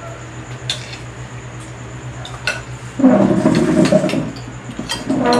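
Metal spoons clinking and scraping against ceramic bowls as soup is ladled and served, in a few separate clinks. About three seconds in, a louder, denser muffled clatter lasts over a second.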